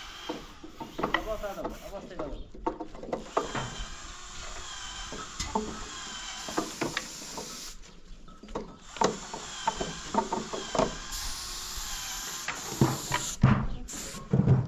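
Irregular light knocks and clatters of wood as wooden beehive frames and boxes are handled and fitted together, with a few louder knocks near the end.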